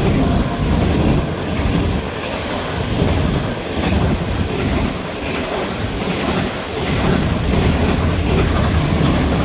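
Pakistan Railways Green Line express's CRRC Tangshan passenger coaches rushing past at high speed: a loud, steady roar of wheels on rail and rushing air with a deep rumble.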